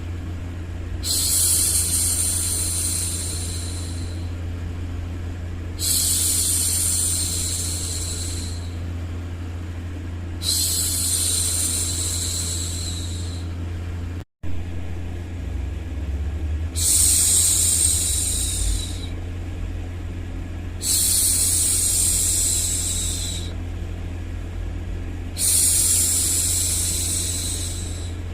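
A woman's voice shushing for a baby: long, soft "shhh" sounds, six in a row, one every four to five seconds, over a steady low hum of background white noise. The sound drops out for a split second about halfway through.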